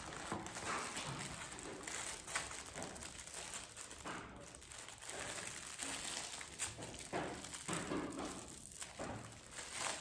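Gift wrapping crinkling and rustling in the hands as a small wrapped item is handled and unwrapped, with irregular rustles and small clicks.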